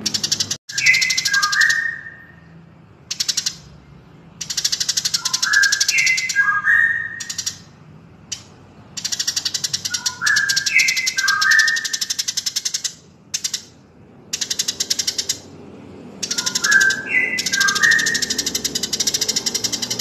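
Recorded birdsong for a masteran (cage-bird song-training) track mixing Eurasian tree sparrow and white-rumped shama: stretches of very rapid, high chattering alternate with short runs of clear whistled notes stepping down in pitch. The pattern comes back four times, about every five seconds.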